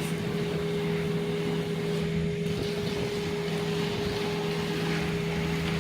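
Engine running steadily at idle, a constant drone with a low and a higher steady hum.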